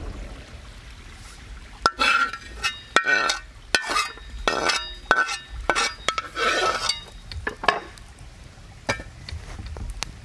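A metal pot clinking and scraping in a quick run of sharp, ringing knocks as cooked meat is tipped and scraped out of it. It starts about two seconds in and stops near the eight-second mark.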